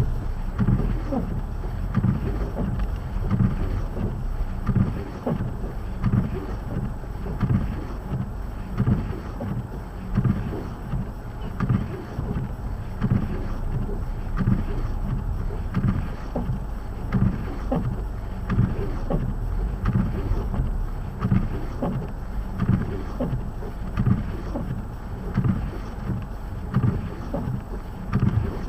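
Blizzard wind buffeting the microphone in a steady low rumble, with frequent low thumps about every half second to a second.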